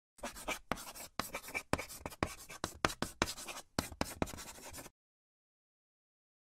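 Writing sound effect: about a dozen quick scratchy strokes, stopping suddenly about five seconds in.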